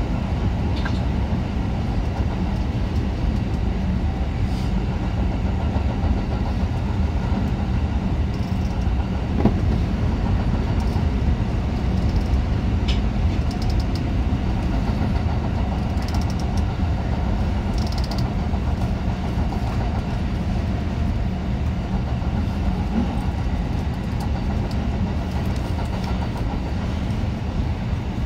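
Osaka Metro subway train running through a tunnel, heard from inside the front car: a steady low rumble of wheels on rail, with a few faint clicks.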